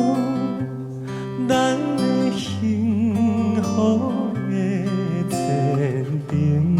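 Music: a Taiwanese Hokkien ballad's instrumental passage, with acoustic guitar accompaniment under a held melody line that wavers with vibrato.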